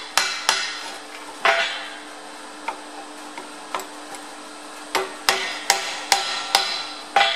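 Club hammer striking the hot, freshly welded steel end of a Zetor tractor gear-selector lever held in a vise: sharp metal-on-metal blows, three near the start, a few light taps in the middle, then six in quick succession near the end. A steady low hum runs underneath.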